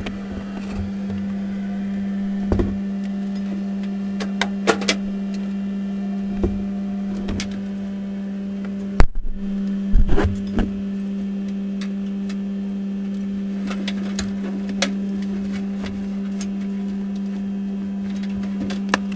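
A steady hum inside the streamliner's closed cockpit, broken by scattered clicks and knocks. The hum cuts out briefly after a sharp click about nine seconds in, then comes back.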